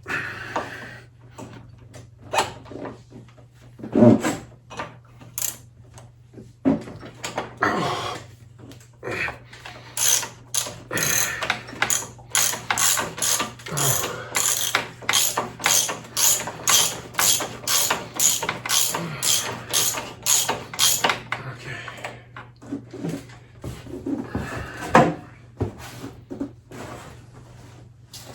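Ratchet wrench clicking as it turns a socket on a motorcycle fork cap: scattered clicks and knocks, then a steady run of sharp ratchet clicks, about two a second, for around ten seconds in the middle.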